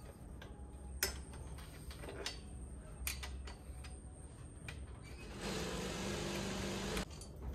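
Metal fittings being fastened to a wooden sofa frame: a few sharp clicks and knocks, then near the end a small motor runs steadily for about a second and a half before stopping abruptly.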